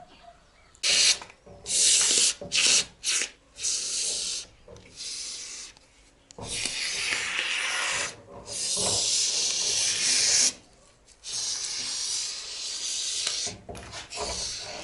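Polyurethane mounting foam hissing out of a foam gun: a run of short squirts, then longer sprays of a second or two each, as foam is laid into the gap around a door frame.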